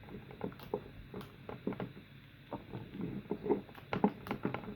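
Irregular small clicks and knocks of hands working the plastic casing of an Eheim air pump while its rubber feet are pulled off.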